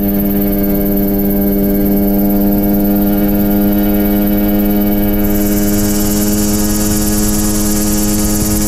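Engine of a small single-seat ultralight helicopter running at a steady, unchanging pitch with the rotor turning. A high hiss joins about five seconds in.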